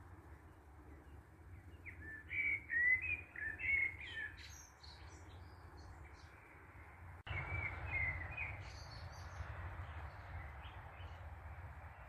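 Eurasian blackbird singing: fluting phrases that break into higher twittering, a first burst of song a couple of seconds in and another after about seven seconds, over a steady low background hiss.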